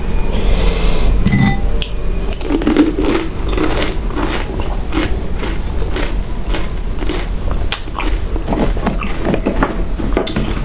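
Mouth sounds of someone biting and chewing pani puri: crisp, hollow fried puri shells crunching, with many short crackles in quick, irregular succession.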